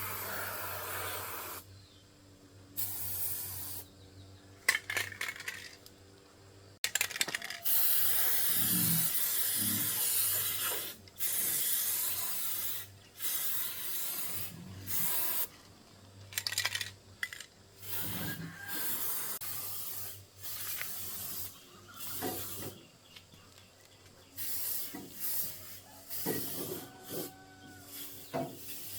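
Short stretches of hissing and rubbing noise that start and stop abruptly one after another, with a few sharp metallic clicks among them.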